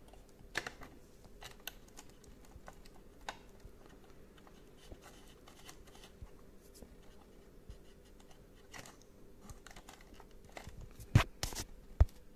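Plastic parts of a dishwasher's control panel being handled and fitted: scattered small clicks and scrapes, with a few sharp, louder clicks near the end.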